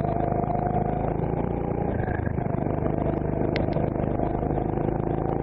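Onboard sound of a CRG Centurion rental kart's engine running through a slow corner. Its pitch eases a little at first and starts rising again near the end as the kart accelerates out. There is a single short click about three and a half seconds in.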